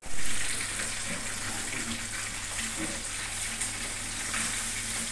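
Fish soup boiling hard in an aluminium wok on a gas stove: a steady bubbling hiss, with a faint low hum underneath.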